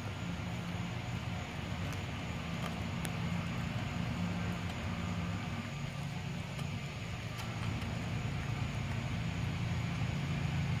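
A steady low motor hum runs throughout, with a few faint clicks from a dog chewing raw chicken.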